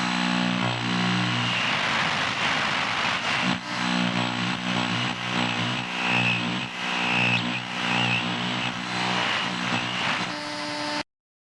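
Radio interference: a steady electrical buzz with layered humming tones over static hiss, wavering and warbling as it shifts. It cuts off suddenly near the end.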